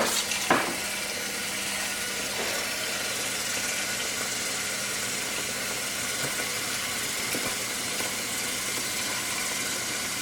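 Kitchen tap running steadily, filling a cooking pot with water, with a short knock just after the start.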